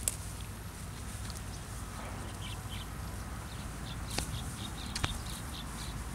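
A small bird chirping in a quick series of short notes through the middle, over a steady low background rumble. There are a few sharp crunches, two of them close together near the end, as a zebu cow pulls and chews dry rice straw.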